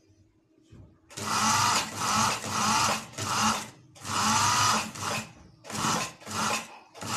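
Sewing machine stitching lace onto a trouser hem. It starts about a second in and runs in short stop-start bursts, each under a second long, as the fabric is guided through.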